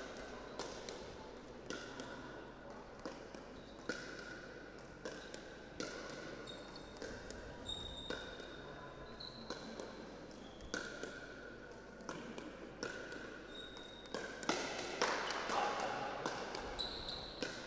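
Pickleball rally: sharp pops of paddles striking the plastic ball, irregular and roughly one a second, with short squeaks of court shoes on the floor. It gets louder and busier near the end.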